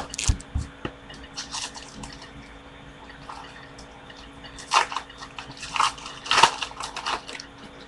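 Baseball card pack wrapper crinkling and tearing as it is opened by hand, in several short bursts; the loudest come about five and six and a half seconds in.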